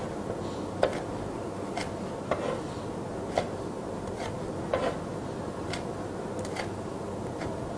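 Chef's knife slicing bird's eye chillies on a wooden cutting board: about ten light, unevenly spaced taps of the blade striking the board.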